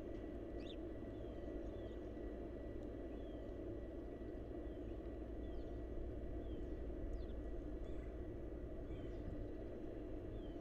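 Steady low background noise, with faint, short, falling bird chirps repeated about once a second.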